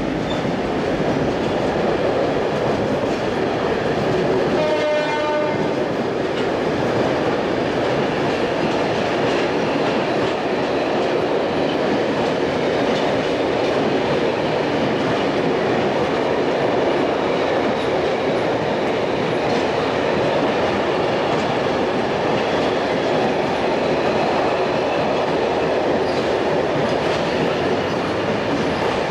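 Freight train's container wagons rolling past at close range: a steady, loud rumble and clatter of wheels on the rails. About five seconds in comes a brief pitched tone lasting about a second.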